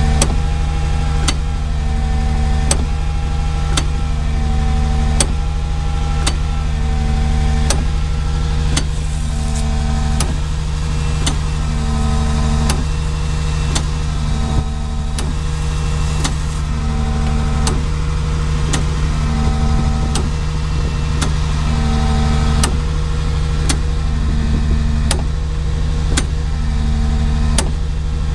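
Truck-mounted hopper-and-mould machine running: a steady low engine drone under a regular cycle, a sharp click about every 1.3 seconds, each followed by a short steady tone.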